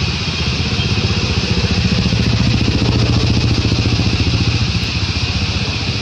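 A motor running steadily, a low, fast-pulsing hum that swells slightly in the middle, over a steady high hiss.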